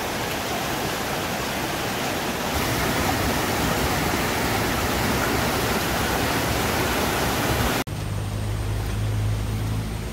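Swollen, muddy stream rushing along a channel and over rocks: a steady, loud noise of churning water. It cuts off sharply about eight seconds in, leaving a quieter low rumble.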